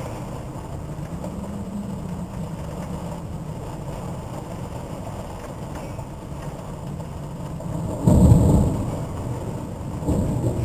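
Thunderstorm: a steady low rumble of wind and rain, then a loud burst of thunder about eight seconds in that fades away over a couple of seconds.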